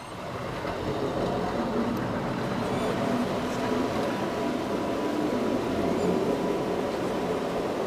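Canal tour boat's motor running steadily with water and hull noise. It grows louder over the first second, then holds.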